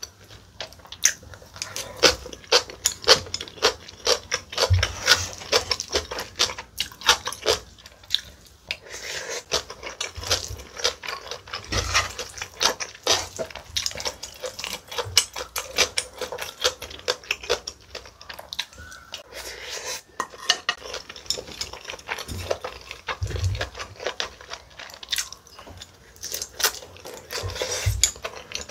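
A spoon and chopsticks scraping and clinking against a plate as spicy rice is mixed and scooped up, in quick repeated strokes, with a few dull thumps now and then.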